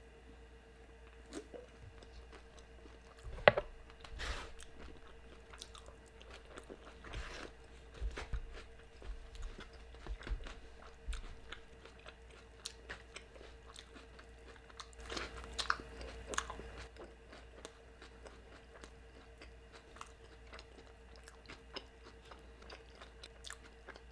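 A person biting and chewing a birria torta: wet chewing with scattered crunches of the bread, the loudest bite about three and a half seconds in and a busier run of bites a little past the middle, over a faint steady hum.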